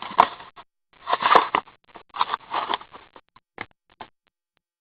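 Trading-card packaging crinkling and tearing in several short, irregular bouts as a box of hockey cards is opened; it stops about four seconds in.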